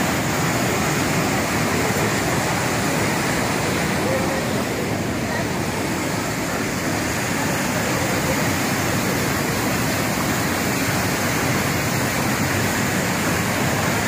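Waterfall on a fast mountain river: heavy white water pouring over a broad rock and concrete ledge, a steady loud rush.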